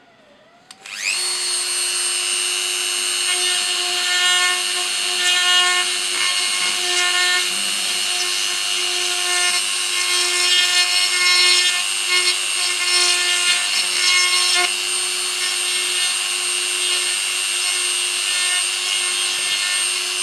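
A handheld rotary tool spins up about a second in and runs with a steady high whine, its burr grinding a hole into a 3D-printed plastic skull model. The whine wavers and roughens while the bit bites into the plastic through the middle stretch, then steadies.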